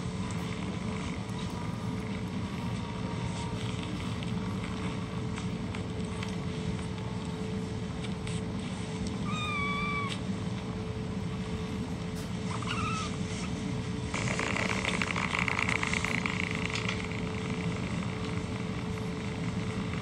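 Cats purring steadily in a low hum, with a kitten giving two short mews about halfway through, the second rising in pitch. A few seconds of rustling noise follow.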